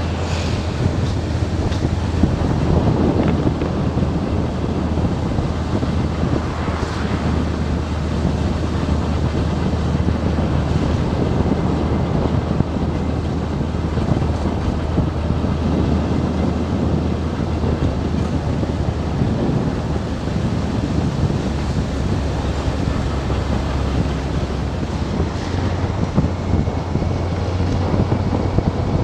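Wind buffeting the microphone of a camera on a moving motorcycle, over the steady low hum of the motorcycle's engine.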